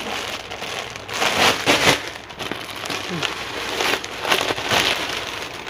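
Clear plastic packaging crinkling and crackling irregularly as plastic-wrapped saree packets are handled.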